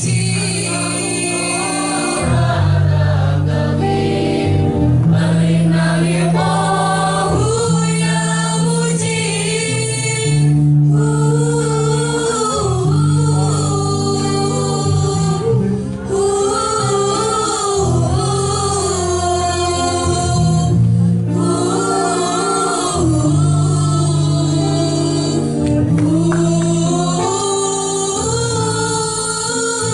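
A choir singing a slow song in harmony, with long held notes.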